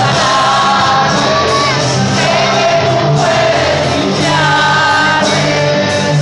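A man singing into a microphone over amplified backing music.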